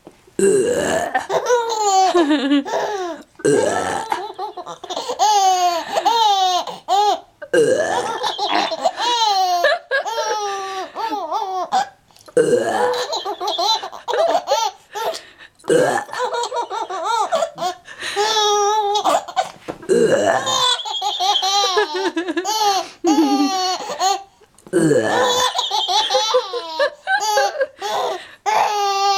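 A baby laughing hard in long, high-pitched bouts of belly laughs, restarting every few seconds. Each bout follows an adult's burp, which sets the laughter off again.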